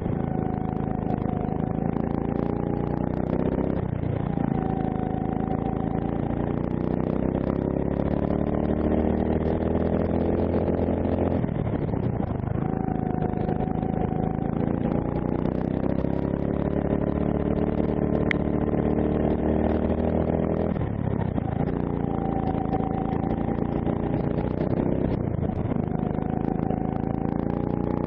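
D&M 270cc four-stroke kart engine running under load, its pitch rising steadily as the kart accelerates and falling sharply four times as the driver lifts off for corners.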